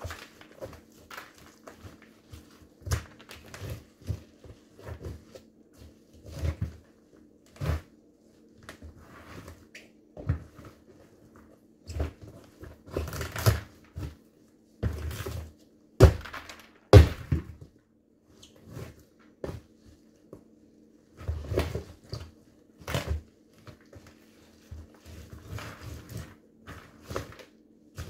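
Sneakers stomping on a smashed pumpkin: irregular thuds as the rind and stringy flesh are crushed against a wooden floor, the hardest stomps about halfway through. A faint steady hum underneath.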